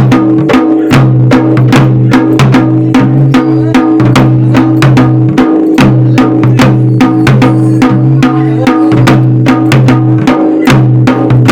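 Fast, steady drumming at about five strokes a second, with a held low tone sounding underneath.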